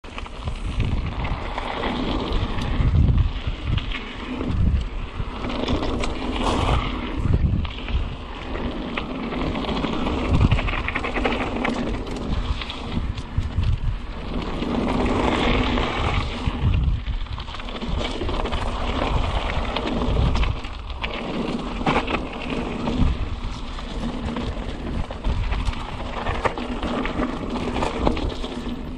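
Mountain bike riding down a dirt trail: continuous tyre and trail noise with irregular low thumps over bumps and wind rumbling on the microphone.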